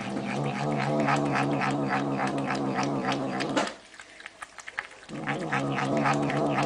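A cat yowling in a long, low, drawn-out call that breaks off about three and a half seconds in and starts again a second and a half later.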